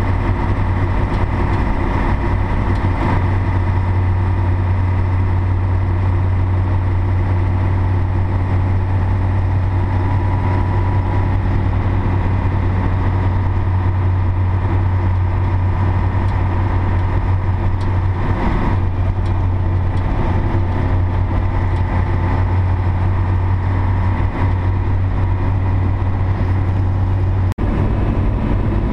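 Scania Tgb 30 4x4 truck's six-cylinder Scania D11 diesel engine running steadily under way, heard from inside the cab as a constant low drone. The sound briefly breaks off near the end.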